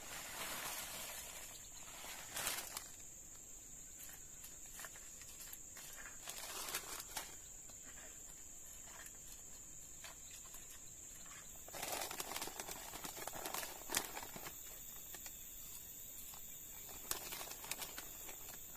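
Forest ambience: a steady high-pitched insect drone, with scattered rustling and crackling that comes and goes in short bursts.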